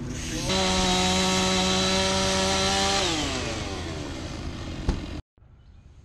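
Two-stroke chainsaw revved suddenly to full throttle and held steady for a couple of seconds, then released so its pitch falls as the engine winds down. A sharp knock comes near the end.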